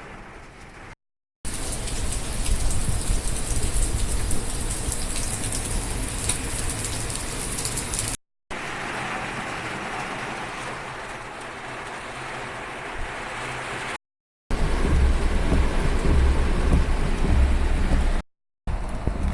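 Heavy typhoon rain and wind hissing steadily, in four short recordings cut together with brief dead silences between them. The later stretches add heavy low wind noise on the microphone.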